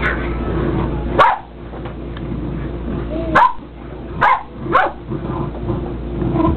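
Dog barking playfully in short, sharp barks, four or five times a few seconds apart.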